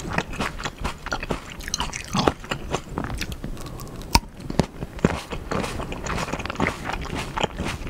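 Close-miked biting and chewing of whole Black Sapphire grapes, eaten skin and all: a steady run of short, sharp clicks and snaps as the skins break, with wet chewing between.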